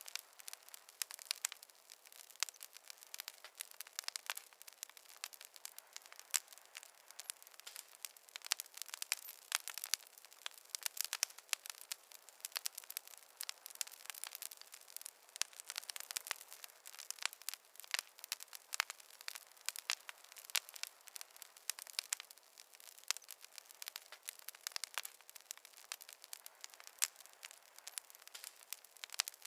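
Wood fire crackling in a fireplace: a dense, irregular run of sharp snaps and pops over a faint hiss, with no low rumble.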